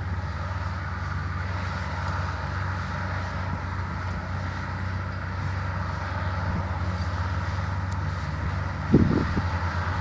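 Case IH tractors' diesel engines running steadily under load as they pull ploughs through the soil: a constant low drone. A short thump about nine seconds in.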